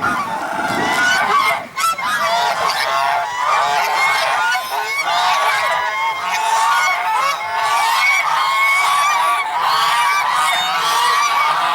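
A group of African geese honking, many short calls overlapping one another without a break.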